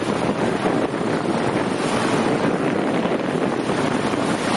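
Strong wind buffeting the microphone, over the wash of sea waves.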